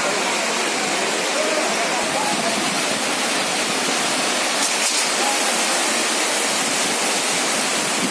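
Heavy rain pouring down steadily, a loud, dense, unbroken hiss.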